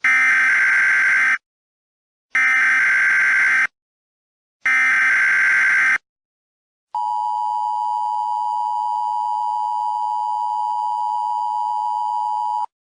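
Emergency Alert System alert opening: three short screeching bursts of SAME digital header data, then a long steady attention tone that stops abruptly. Together they signal that an emergency message is about to be read.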